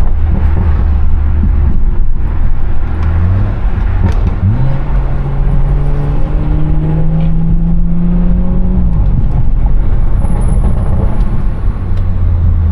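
BMW 340i's turbocharged straight-six with a modified, loud exhaust, running at low revs and then pulling up through the revs about four seconds in. It holds the higher revs, rising slightly, and drops back to a low steady drone about nine seconds in.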